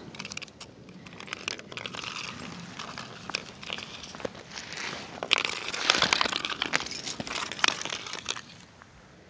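A Pembroke Welsh Corgi puppy's claws click and scratch on pond ice in a rapid, crackly patter. It grows busiest and loudest past the middle as the puppy trots close, and stops about a second before the end.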